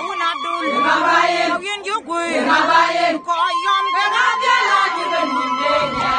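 A group of women singing a traditional wedding song together in short, repeated phrases that rise and fall.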